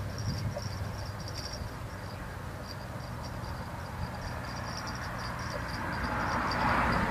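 Insects chirp in high pulsing trills over a low steady hum. About six seconds in, a louder rush of splashing comes up as the hooked fish thrashes at the surface while being reeled in.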